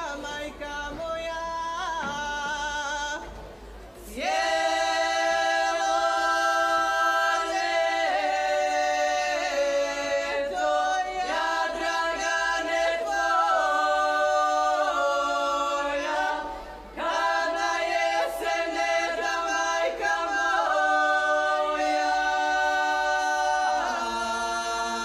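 A folk group singing a cappella, several voices holding long, level notes together and moving between them in steps. The singing breaks off briefly for a breath about three and a half seconds in and again around seventeen seconds.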